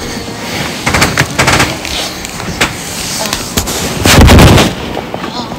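Irregular sharp bangs and knocks, with one much louder burst lasting about half a second around four seconds in.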